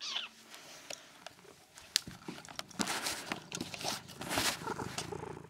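Scratchy rustling and crunching right at the microphone, coming in uneven bursts: handling noise as the camera rubs against the cat's fur.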